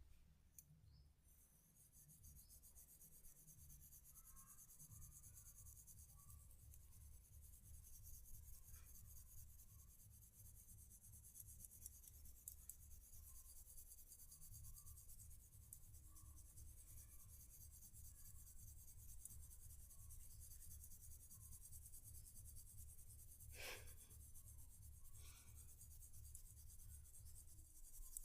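Faint scratching and rubbing on hair and scalp during a head massage, going on steadily, with one sharp click late on.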